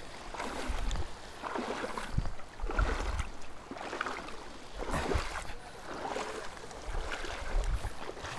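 Water sloshing and splashing as someone wades through shallow seawater over a rocky shore, swelling in surges about once a second.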